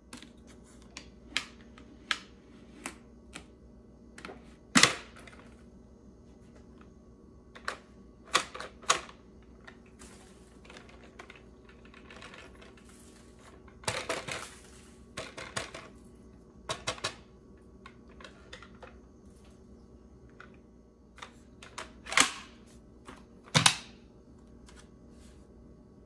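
Hard plastic clicks, snaps and knocks of a Dyson V8 cordless vacuum's handheld unit being handled, its clear dust bin and cyclone taken apart and fitted back together, with the motor off. The clicks come irregularly, with a few louder snaps, two of them close together near the end.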